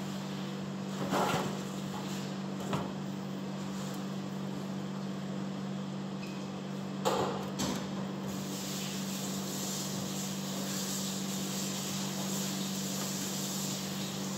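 Steady low hum of kitchen equipment, with a few short knocks and rubs as flowers and a glass vase are handled at a stainless-steel sink; a soft hiss comes in about eight seconds in.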